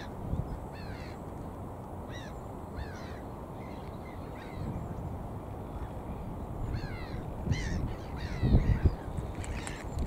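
Gulls on the water giving short, harsh, down-slurred calls, singly and in quick runs, several in the first three seconds and more from about seven seconds on. Under them is a low rumble of wind on the microphone, which gusts louder about eight and a half seconds in.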